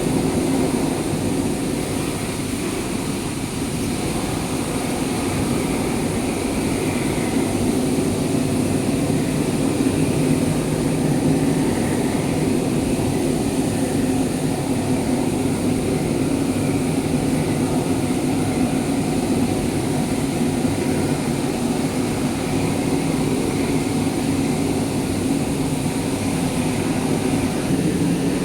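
Loud, steady rushing noise of a blast furnace cast house with the taphole opened for casting, the sound of the furnace being tapped.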